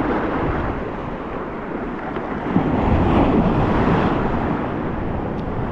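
Sea surf rolling and breaking on the beach, with wind buffeting the microphone; a wave surges loudest around the middle.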